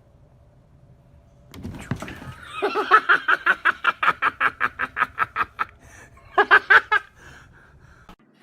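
A person laughing hard: a long string of quick, even 'ha-ha' pulses, then a shorter second burst of laughter near the end.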